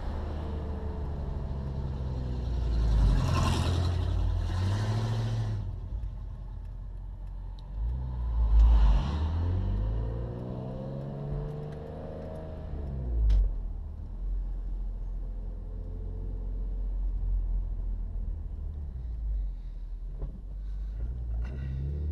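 BMW E46 M3's inline-six, fitted with aftermarket headers and a Corsa exhaust, heard from inside the cabin while driving. Its pitch rises and falls several times as it pulls through the gears and eases off, with louder surges about three seconds in and again near nine seconds.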